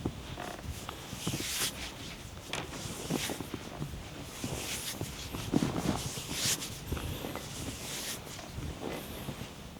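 Hands working on a person's bare body during a massage: irregular rubbing swishes on skin, mixed with soft pats and thumps.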